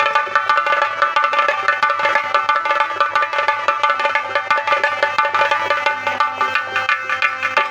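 Instrumental stretch of North Indian folk dance music: a sustained melody line over fast, steady hand-drum and clacking percussion.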